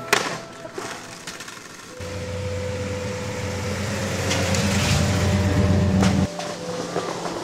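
Skateboard wheels rolling on pavement: a low rumble that grows louder and then cuts off abruptly about six seconds in. A sharp knock comes right at the start.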